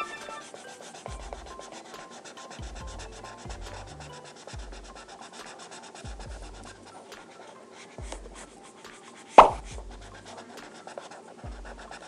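A felt-tip marker rubbing and scratching across paper in quick colouring strokes, over soft background music with a slow repeating bass. A single sharp knock about nine seconds in.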